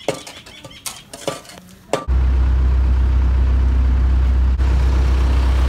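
A few scrapes and knocks of shovels working the dirt, then a sudden change about two seconds in to a loud, steady, low rumble of a truck engine running close by.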